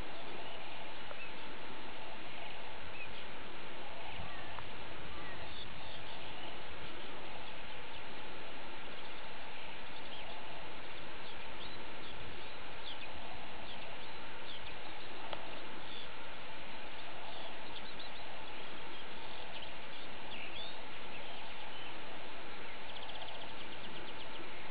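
Steady outdoor background hiss with small birds chirping faintly now and then, and a quick trill near the end.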